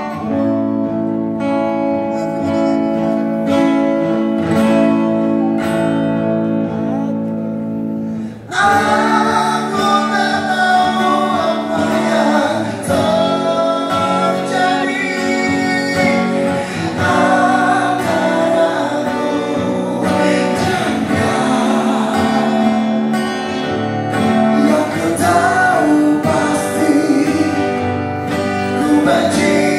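A male singer performing an Indonesian pop song live with acoustic guitar accompaniment. The opening seconds are mostly strummed chords, and about eight seconds in the music grows louder with the voice out in front.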